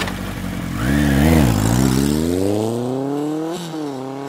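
Engine revving up. Its pitch wobbles about a second in, then climbs steadily, drops once briefly and climbs again. A hissing whoosh runs over the start.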